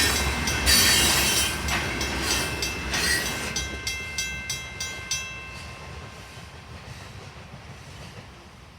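Freight train cars rolling past, wheels clicking over rail joints, the sound fading away as the train passes and recedes. A few thin steady ringing tones die out about halfway through.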